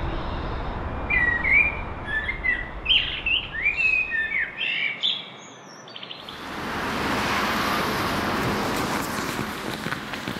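Small birds chirping and singing, a quick run of short rising and falling calls for about four seconds. After a brief lull, a steady rushing noise takes over about six seconds in.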